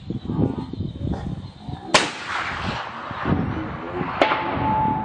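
A suppressed sniper rifle fires one shot about two seconds in: a sharp crack that echoes and dies away over about a second. A second sharp crack comes near the end, followed by a steady ringing tone.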